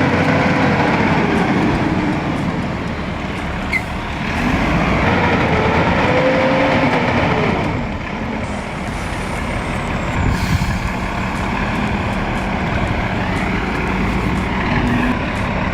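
Volvo 6x6 truck's diesel engine working hard under load on a rough, difficult road. Its pitch rises and falls as the revs change, and it is louder for a few seconds in the middle.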